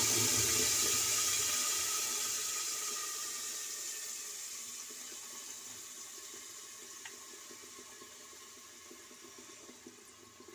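Tomato puree sizzling in hot oil in an aluminium pressure cooker: a loud hiss at first that dies away steadily over about ten seconds.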